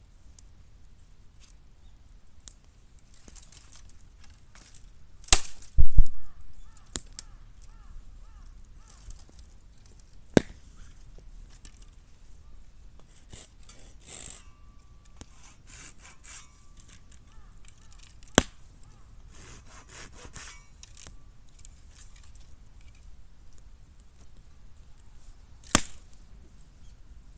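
Bamboo burning in a bottomless square metal can, with sharp cracks as heated culms burst: a loud double bang about six seconds in, then single cracks about ten, eighteen and twenty-six seconds in, over faint small crackling.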